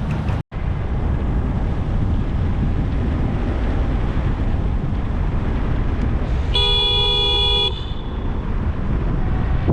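A car horn sounds once, a single blast of about a second, about two-thirds of the way through, over steady wind and road noise from riding.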